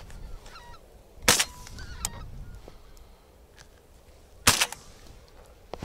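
Two shotgun shots about three seconds apart, each trailing off in a short echo, with a flock of wild geese honking overhead.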